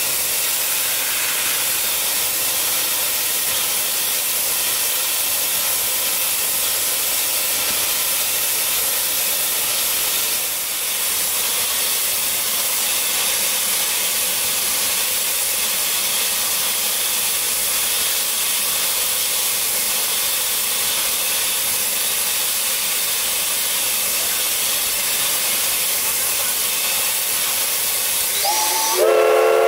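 JNR Class C56 steam locomotive venting steam with a steady, loud hiss. Near the end its steam whistle starts, a chord of several tones that slides briefly up in pitch before holding.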